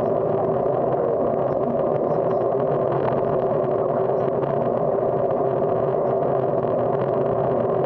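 Steady rush of wind and tyre noise picked up by a bicycle's handlebar-mounted camera while riding along a paved street.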